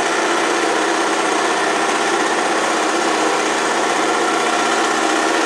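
Lawn mower running steadily while mowing the lawn short, an even motor hum that holds one pitch throughout.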